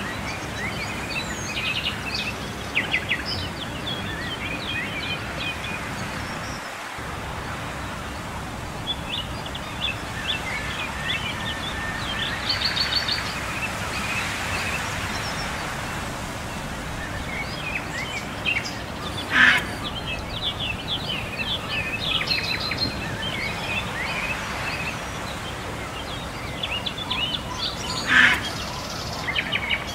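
Many small birds chirping and twittering over a steady background hiss, with two louder, brief bird calls about two-thirds of the way through and near the end.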